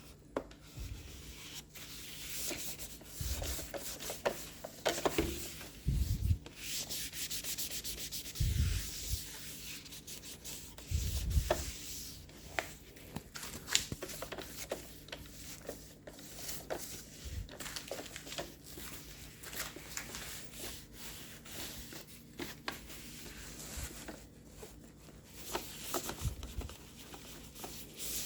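A cloth rubbing and wiping over the plastic top of a Roomba robot vacuum in irregular strokes, with a few soft low bumps from the machine being handled.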